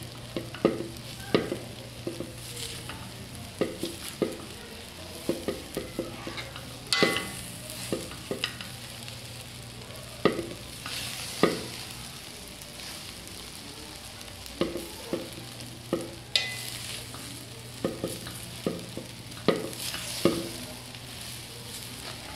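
Metal spoon scraping and knocking against a large pan as fried rice is stirred and tossed, working soy sauce through it, over a steady sizzle. The knocks come irregularly, with a lull of a couple of seconds around the middle.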